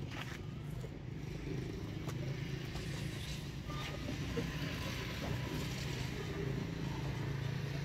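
Motor vehicle engine running, a steady low hum that grows slightly louder over the first second or two.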